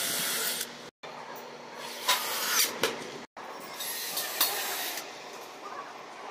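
Makita 12V cordless drill boring into wood in short runs, a high hissing whirr, with a few sharp knocks of wood in between. The sound breaks off abruptly twice.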